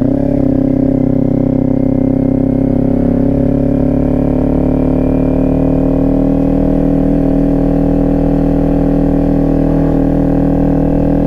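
Kawasaki Ninja 400 sport bike's parallel-twin engine running under load in gear, its pitch rising slowly and evenly as the bike gently gathers speed.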